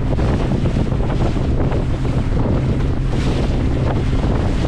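Wind buffeting the microphone over the steady low drone of a boat's engine.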